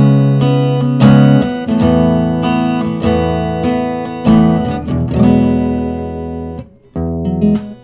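Small-bodied D&D Django Jr mahogany acoustic guitar playing chords, with new chords struck about once a second and left to ring. The sound is cut off briefly near the end, then the playing picks up again.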